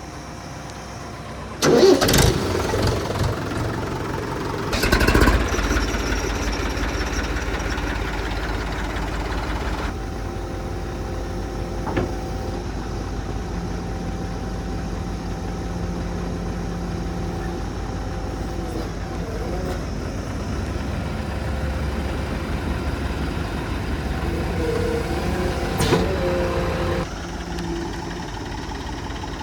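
Diesel engines of a backhoe loader and tractor running steadily while working, with two loud surges about two and five seconds in and another near the end.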